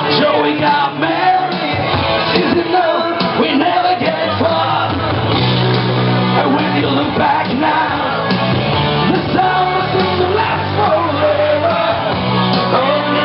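Loud music with a man singing into a microphone over it, and a deep bass line that grows strong about four seconds in.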